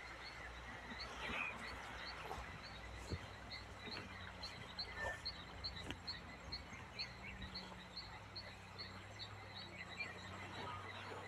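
Rural tropical outdoor ambience: a small creature gives a short high chirp about twice a second, steadily, over a faint continuous hum of insects, with a few faint clicks.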